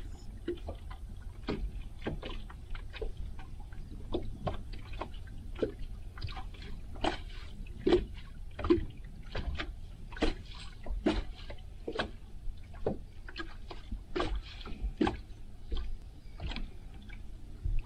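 Small waves lapping and slapping against a fishing boat's hull in irregular short splashes, over a steady low rumble.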